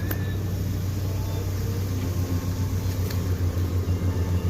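Low, steady engine hum that starts to pulse rhythmically, several beats a second, about two seconds in.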